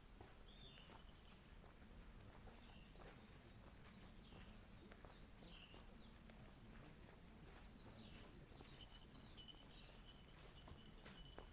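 Faint birds chirping: a few short high calls, then a quick run of short falling chirps through the middle, over a low steady background rumble.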